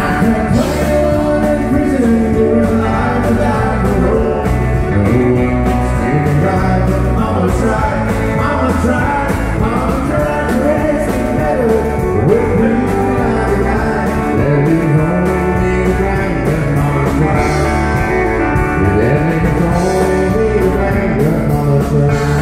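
A live country band playing at full volume: acoustic and electric guitars, pedal steel guitar, keyboard and drums, with a melody line bending over a steady beat.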